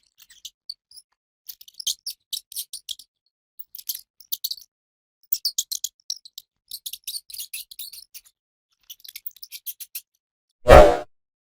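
Rat making quick clusters of short, high-pitched clicks and squeaks. Near the end comes one louder, fuller sound lasting about half a second, the loudest thing here.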